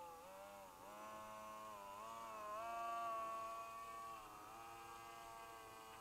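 Electric RC model plane's motor and propeller whining in flight. The pitch wavers down and up several times as throttle and distance change, and it is loudest about three seconds in.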